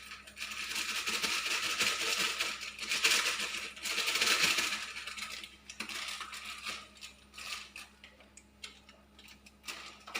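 Plastic spice-mix packet crinkling and being torn open, with its contents shaken out, for the first few seconds, followed by scattered light clicks and clinks.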